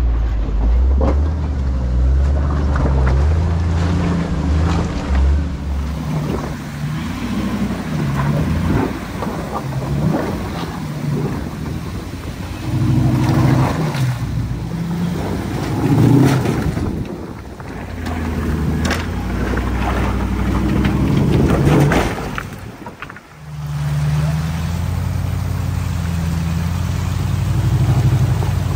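Off-road truck engine running at low crawling speed over boulders, its note stepping up and down as the throttle is worked. Rocks knock and scrape under the tyres throughout.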